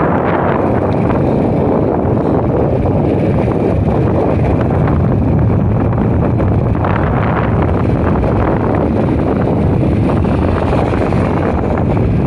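Steady, loud wind rushing over the microphone of a moving motor scooter, with the scooter's running and road noise mixed in underneath.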